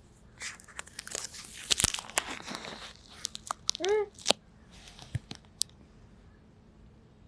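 Crinkling, crunching handling noise with sharp clicks, like something being rustled or torn, then a brief squeaky rise-and-fall tone about four seconds in, followed by a few scattered clicks.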